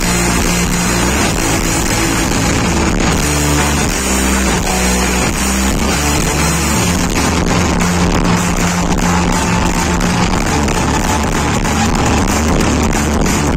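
Live rock band playing loudly through a PA: electric guitars over bass guitar and a drum kit.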